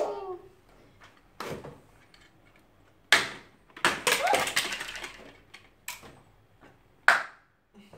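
Hard plastic toy pieces and toy cars clacking and knocking against a plastic VTech car-ramp track set: a few separate sharp knocks spread through, the loudest about three seconds in and near the end.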